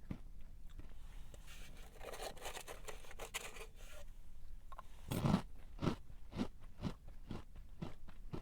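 Close-up crunching and chewing of a crisp snack: a dense crackling crunch in the first half, then steady chewing strokes at about two a second.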